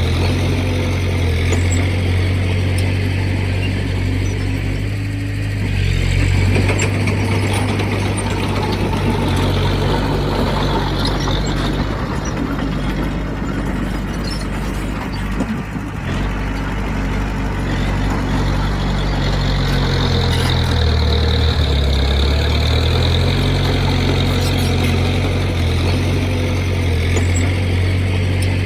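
Heavy diesel engine of earthmoving equipment running continuously. Its pitch drops briefly about two-thirds of the way through, then comes back up.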